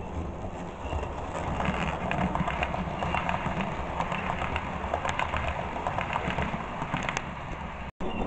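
A model railway train, a diesel locomotive hauling passenger coaches, running past close by: a steady low motor and wheel hum with a rapid, irregular clicking of wheels over the track, louder from about a second in. The sound breaks off for an instant near the end.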